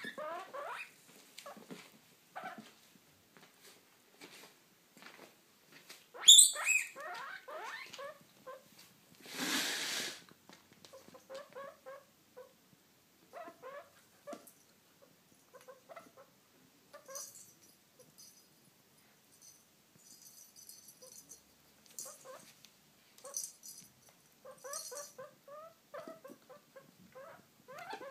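Guinea pig popcorning and darting about: bursts of short squeaks and chirps throughout, with a loud high squeak about six seconds in. There is a brief rustle near ten seconds, and a faint high rattling partway through.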